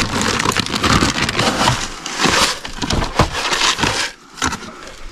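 Plastic feed bag crinkling and rustling as it is handled, with a plastic scoop digging into grain chicken feed; the noise dies down about four seconds in.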